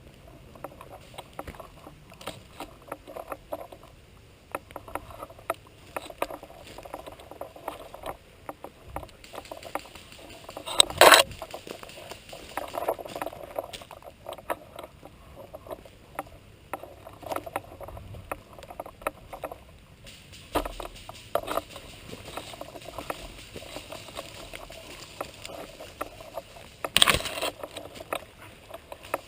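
Irregular rustling and crackling of a player moving through undergrowth, close to the camera, with two sudden loud sounds: one about eleven seconds in and one near the end.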